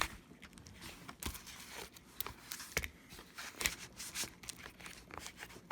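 Irregular clicks and short crackling scrapes as a tool is worked under a MacBook Pro's battery cells, peeling them off their double-sided adhesive tape.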